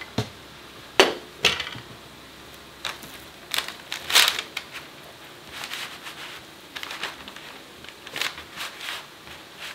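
Hands rubbing butter over the cut flesh of a halved squash lying on parchment paper: scattered soft rustling and squishing, after two sharp knocks about a second in.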